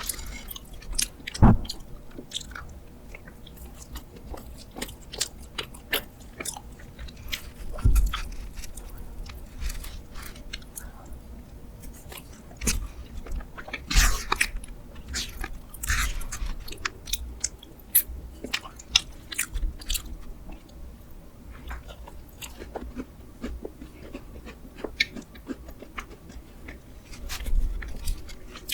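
Close-miked eating of a spoonable ice box cake: repeated chewing and biting, with scattered sharp clicks and short crunchy bursts.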